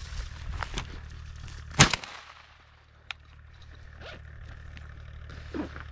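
A single close shotgun shot about two seconds in, sharp and loud with a short echoing tail, fired at a rabbit. Footsteps on stony ground go before it and stop at the shot, and a small sharp click follows about a second later.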